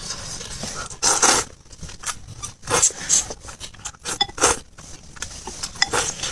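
Close-miked eating sounds of someone eating noodle soup: four short, noisy bursts of slurping and biting, about a second or more apart.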